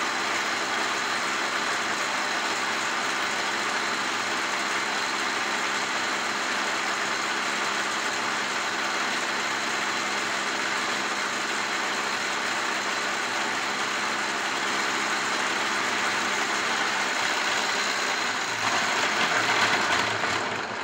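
A homemade alternator test bench running steadily: a 3000 rpm motor spins a repaired Renault alternator through a V-belt, and the alternator is charging at about 14 volts. The running sound gets louder near the end.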